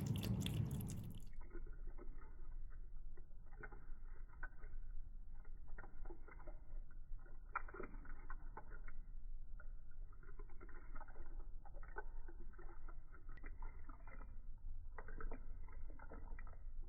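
Slowed-down, muffled audio of slow-motion footage: irregular soft taps and clicks over a low hum.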